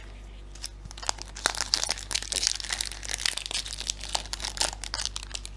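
Hockey trading-card pack wrapper crinkling and crackling as it is torn open and handled, in dense, irregular crackles that start about half a second in.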